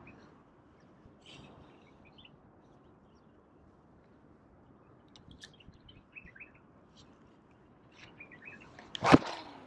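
Faint, scattered chirps of small birds over quiet open-air background, then a single sharp loud knock near the end.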